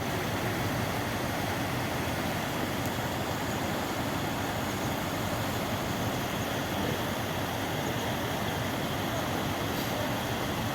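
Mountain stream rushing: a steady, even wash of running water.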